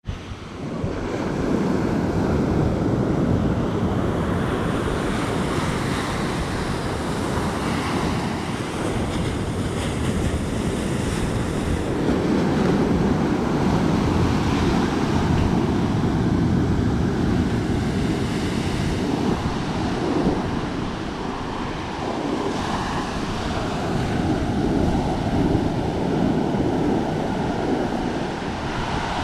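Surf breaking and washing up a sandy beach in a continuous wash, with wind buffeting the microphone.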